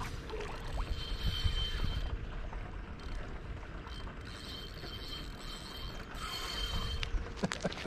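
Fishing reel being cranked as line is wound back in: a steady mechanical whirr with a faint ratcheting click from the reel's gears.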